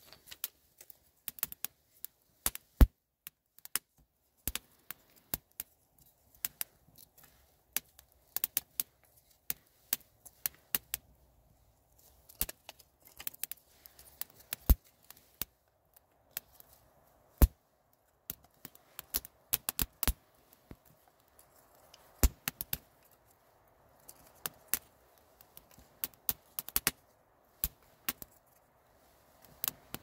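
Kindling fire of dry twigs and split wood sticks crackling, with many sharp, irregular snaps and pops as it catches. A soft rush of flame builds under the pops in the second half.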